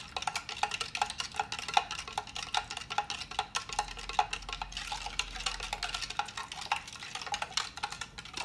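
A spoon stirring borax into warm water in a clear plastic container, knocking and scraping against the sides in a rapid run of small clicks as the borax dissolves.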